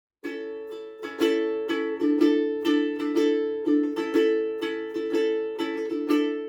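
Plastic-bodied travel ukulele strummed in a steady rhythm, about two strums a second on one repeated chord, fading near the end.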